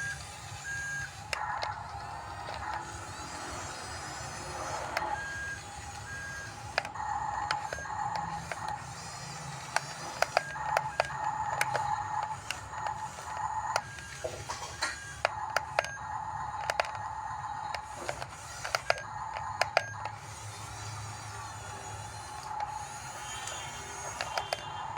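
Radio-controlled model bulldozer at work: its small electric drive motors and gearboxes whine in spurts as it moves, with sharp clicks and knocks from the tracks and blade, loudest in the middle.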